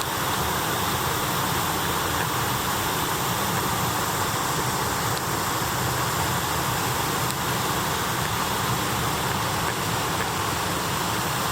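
Icy waterfall running: a steady, even rush of falling water.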